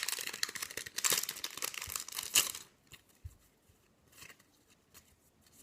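Foil booster pack wrapper crinkling and tearing open for about two and a half seconds, then only a few faint clicks of handling.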